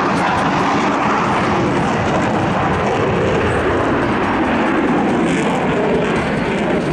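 Loud, steady jet noise from a Lockheed Martin F-22 Raptor's two Pratt & Whitney F119 engines as the fighter maneuvers in flight.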